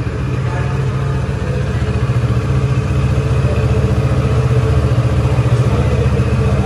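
Kawasaki Ninja 650's 649 cc parallel-twin engine idling steadily through its exhaust, with a fast, even low pulse.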